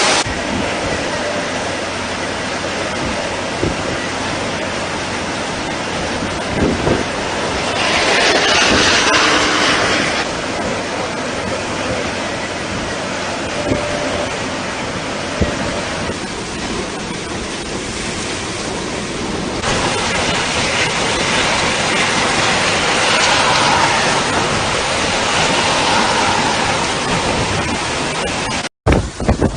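Hurricane wind and rushing water, a steady loud noise that swells about eight seconds in and again after twenty seconds, breaking off briefly near the end.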